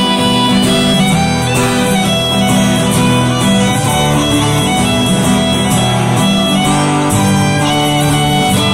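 Live Celtic folk band playing an instrumental tune: fiddle carrying a quick melody over strummed guitar chords and plucked strings, with no singing.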